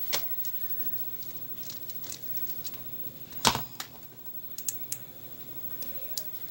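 Scattered small clicks and taps of the Asahi electric fan's motor and gear-housing parts being handled by hand, with one sharper knock about three and a half seconds in.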